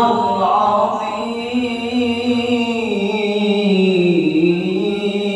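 A male qari chanting Qur'an recitation in a melodic tilawah style, amplified through a handheld microphone. He holds one long, drawn-out phrase that glides slowly and dips in pitch about four seconds in.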